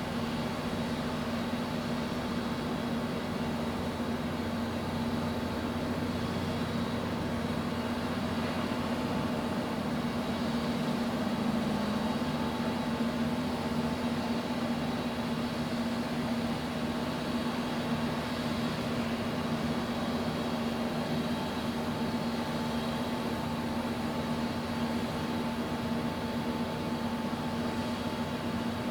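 Ship's engine and machinery running steadily while under way: a constant low drone with a steady hum that does not change.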